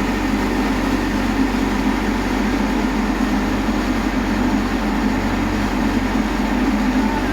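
Heavy machine's diesel engine running steadily at a constant speed with an even, unbroken drone.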